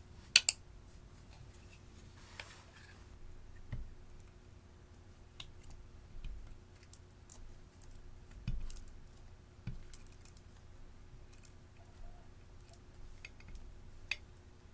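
Slime being kneaded and pressed by hand, giving scattered small sticky clicks and pops with a few soft dull thumps. A sharp double click about half a second in is the loudest sound.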